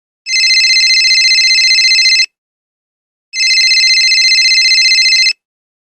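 Telephone bell ringing twice. Each ring is a rapid, even trill lasting about two seconds, with about a second of silence between them.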